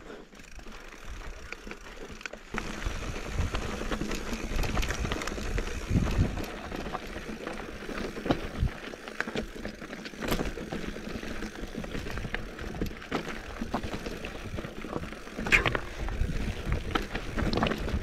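Mountain bike rolling down a rocky, gravelly dirt trail: tyres crunching over loose stones and the bike knocking and rattling over rocks, with a low rumble throughout. It gets louder about two and a half seconds in as the ride speeds up.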